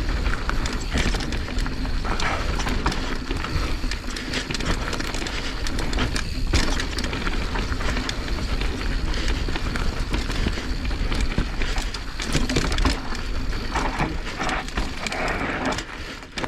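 Mountain bike riding down a loose, dry dirt trail: tyres crunching and sliding over the dirt, and the bike rattling with many sharp knocks over the bumps, over a steady low rumble.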